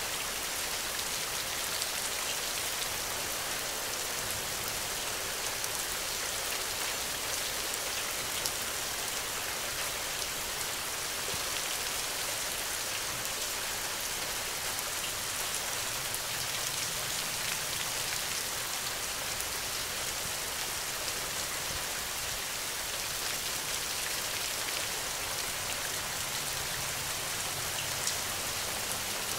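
Steady rain heard at a hut window: an even hiss with scattered sharp taps of single drops.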